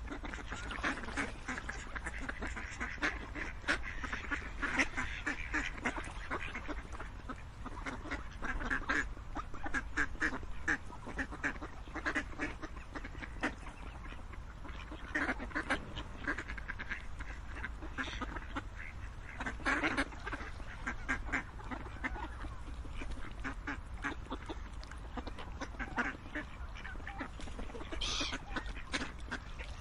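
Many ducks quacking, short calls overlapping in a busy, continuous chatter over a steady low rumble.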